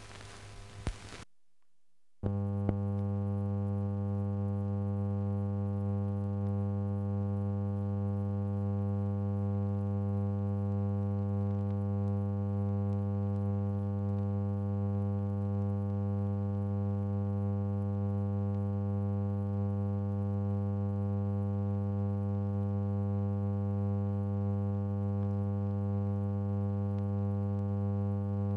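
Steady low electrical mains hum with many overtones. It starts about two seconds in, after the opening music ends and a short gap, and stays even; it stands in for the missing soundtrack of the silent newsreel footage.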